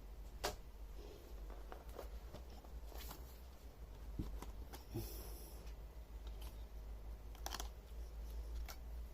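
Scattered faint clicks and taps of small hard laptop parts and tools being handled during disassembly, one with a brief scrape about halfway through, over a steady low hum.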